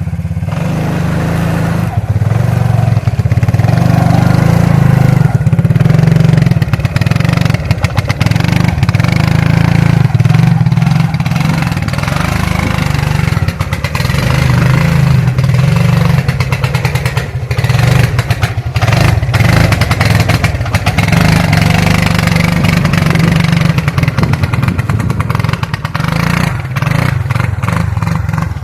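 Suzuki King Quad ATV's single-cylinder engine running hard under throttle, swelling and easing off as it is ridden, with frequent knocks and clatter over it.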